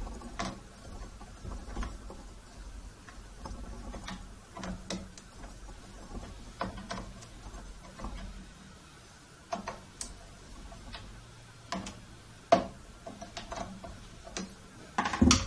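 Irregular clicks, taps and knocks from hand-working a miter saw, its plastic housing and parts handled while it is being taken apart. One sharp knock about twelve and a half seconds in is the loudest, with a cluster of knocks near the end.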